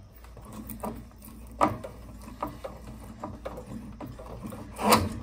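Scattered knocks and clicks of hands and metal tools working a Guard Dog low water cutoff on its threaded boiler fitting, the sharpest knocks about a second and a half in and near the end, over a low steady hum.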